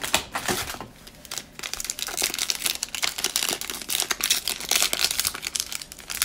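Cellophane wrapper of a Panini Prizm basketball cello pack crinkling as the pack is taken from its box and torn open. The crackling gets denser and louder from about two seconds in.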